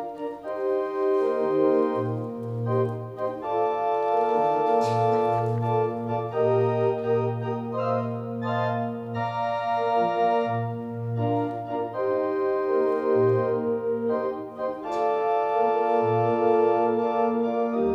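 Two-manual church organ playing a hymn in slow, sustained chords that change every second or two, over a low bass line.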